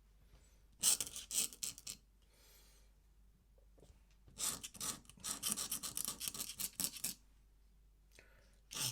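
Ink pen scratching on paper in two spells of quick strokes, the second about three times as long as the first.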